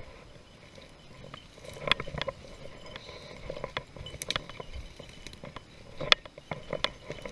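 Footsteps pushing through tall dry grass and brush, with stems and cedar branches crackling and swishing close by in irregular snaps.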